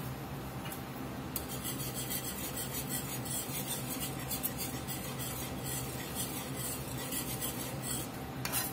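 Wire whisk scraping and stirring milk gravy in a cast-iron skillet: a quick run of rasping strokes, starting about a second in, as the wires rub on the pan.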